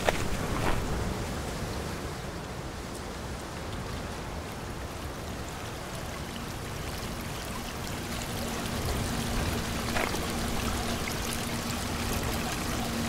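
Heavy rain pouring down steadily, with a couple of brief knocks, one near the start and one about ten seconds in. A faint steady low tone joins about halfway.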